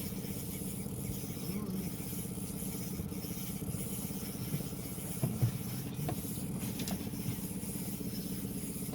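A steady mechanical drone, like a small motor running, with a few faint voices.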